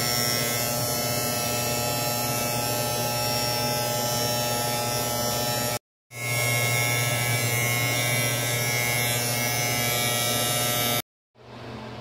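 Electric trimmer running steadily with a buzz as it is drawn over facial hair. The sound breaks off to total silence for a moment about six seconds in, resumes, and stops just before the end.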